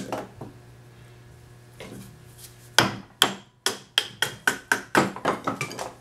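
A wooden baton knocking on the spine of a small fixed-blade knife to split a thin stick of wood. A few single knocks come first, then from about three seconds in a quick run of about a dozen sharp strikes, four or five a second.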